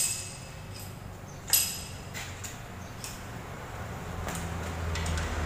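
Metal tools knocking against an engine and transmission assembly hanging from a chain hoist: two sharp metallic clanks with a ringing tone, one at the start and one about a second and a half in, followed by lighter clicks. A low hum builds near the end.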